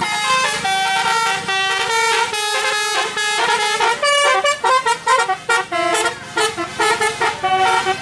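Multi-trumpet telolet horn playing a quick tune. Several notes sound together and change every fraction of a second, with short breaks between phrases. It is most likely the roof-mounted horn on a Daihatsu Gran Max van.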